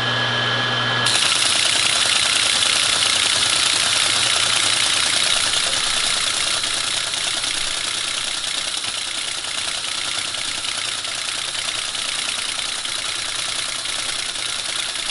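Teletype ASR 33 printing received text: continuous mechanical clatter of the print mechanism, coming in about a second in over a steady hum. The receive section, with its carriage-return linkage newly adjusted, is working properly.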